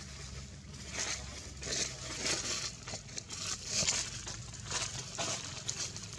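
Dry rustling and crackling of leaves and twigs around a young macaque sitting in a tree. It comes as about a dozen short, irregular crinkly bursts over a low steady hum.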